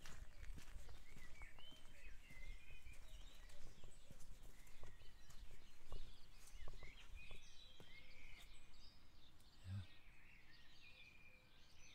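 Small songbirds chirping and singing in short, wavering phrases, over scattered footsteps and a steady low rumble.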